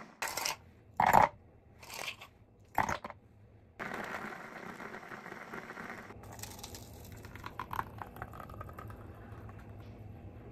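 Récolte Capsule Cutter Bonne electric chopper blending blueberries: four short pulses, then a steady run of about two seconds. Quieter clicks and handling follow.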